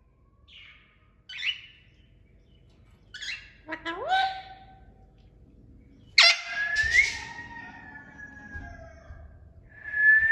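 A pet parrot chirping and calling. A few short chirps and squawks come first, one of them swooping upward. About six seconds in, a loud call trails off into a long, slowly falling whistle. Near the end a rising whistle begins.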